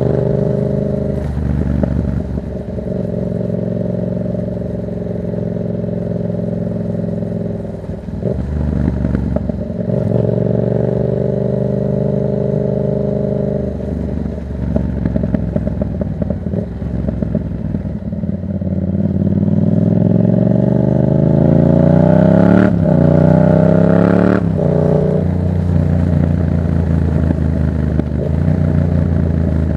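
Yamaha MT-07's parallel-twin engine through a Black Widow exhaust with no dB killer, ridden hard. Revs climb steadily and then drop sharply several times as it shifts up, with one long rising pull about two-thirds of the way in before settling to a steadier run near the end.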